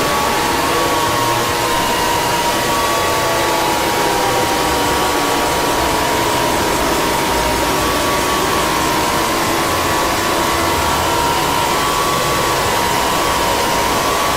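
Emergency alert (EAS) alarm played extremely loud and harsh: a steady wall of noise with faint high tones running through it, a few of them gliding slowly down in pitch over the first several seconds.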